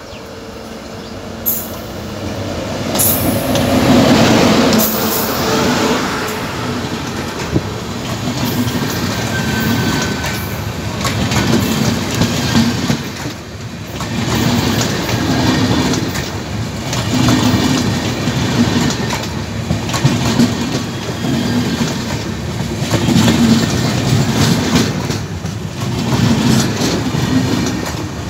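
Passenger train passing close at speed behind a WAP-7 electric locomotive: the rumble builds to its loudest about four seconds in as the locomotive goes by, then the double-decker coaches roll past with a clatter of wheels on rail that swells every few seconds as each bogie goes by.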